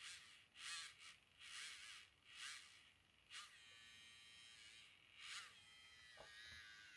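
Battery-powered grinding pen's small high-speed motor running with a faint whine, broken about six times by short rasping bursts with wobbling pitch as the spinning bit is loaded.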